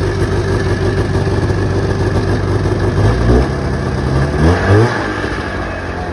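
1988 Yamaha Exciter 570 snowmobile's two-stroke twin engine running at idle. It is blipped up in revs briefly about three seconds in, then twice more in quick succession around four and a half seconds.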